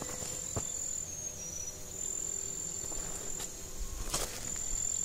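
An insect in the vegetation singing one steady, high-pitched continuous note that dips slightly in pitch for a moment a little over a second in. A couple of soft footsteps on the dirt trail sound briefly, about half a second in and near the end.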